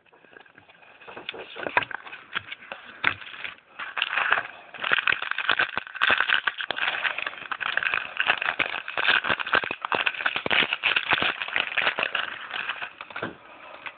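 Crinkling and rustling of a trading-card pack's foil wrapper being torn open and handled, a dense irregular run of crackles that fades out just before the end.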